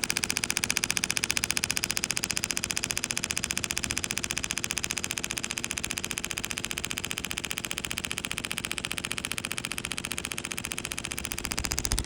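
Kinetic energy therapy machine's handpiece firing a rapid, even train of sharp clicking pulses into the Achilles tendon during treatment.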